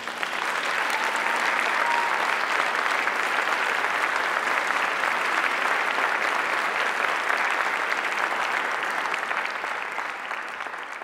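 Audience applauding, breaking out suddenly as the music ends, staying steady, then thinning near the end.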